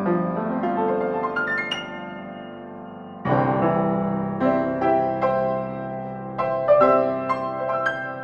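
Piano music: struck chords that ring on, broken by quick rising runs of notes, with a fresh loud chord about three seconds in.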